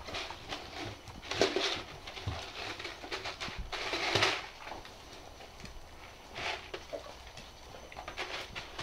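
A plastic drinks bottle filled with dry kibble being nosed and pushed about by dogs on a wooden floor: crinkling plastic and rattling kibble in irregular bursts, the loudest about four seconds in, with small clicks in between.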